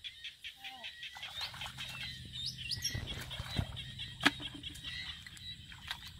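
Small birds chirping in rapid trills, over low sloshing of hands groping through shallow muddy water. One sharp click about four seconds in.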